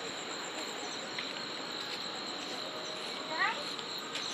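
Insects, crickets or cicadas, droning steadily at a high pitch, with a few short rising calls about three seconds in.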